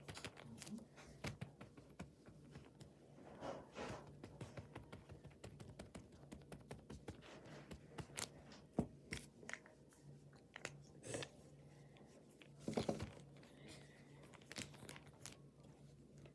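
Hands pressing and rubbing on a paper drawing sealed in a clear plastic zip-top bag, making faint, irregular crinkling and rustling of plastic and paper. A sharp click comes about nine seconds in, and there are louder rustles near four and thirteen seconds, all over a faint steady low hum.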